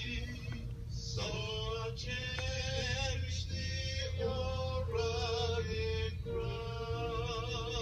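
Singing with musical accompaniment: long held notes with vibrato over a steady sustained tone, with a low hum underneath.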